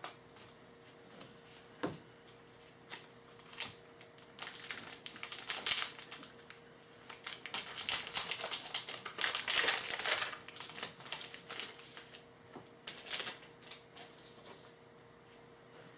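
Trading-card pack wrapper crinkling and cards being handled and shuffled, in irregular short rustling bursts that are busiest in the middle.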